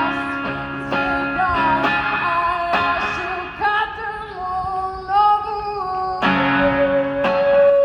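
Guitar strumming a song's instrumental passage between sung lines, with a sliding, wavering melody line held over it.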